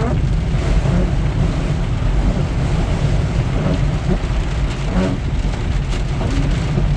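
Heavy rain pouring down steadily, with a constant low rumble of a vehicle driving through it.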